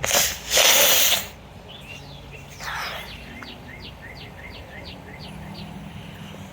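Two loud hissing bursts in the first second or so, then a run of about eight quick, downward-sliding whistled chirps like a bird song.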